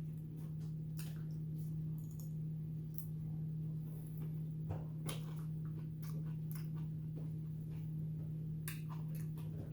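A steady low hum, with scattered faint clicks and light taps, a few of them sharper about five seconds in and again near the end.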